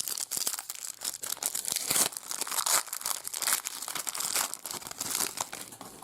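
Foil trading-card pack wrapper crinkling and tearing as it is opened and handled, a dense crackle that thins out near the end.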